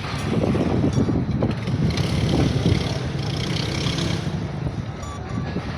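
Concrete pump running steadily during a pour: a continuous low mechanical rumble that grows a little louder about two seconds in and eases near the end.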